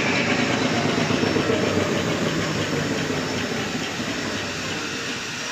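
Paper napkin making machine running, a steady, fast mechanical clatter that eases slightly toward the end.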